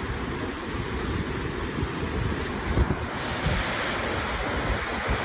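Wind buffeting the phone's microphone in gusts, over a steady rush of water pouring over the dam's spillway.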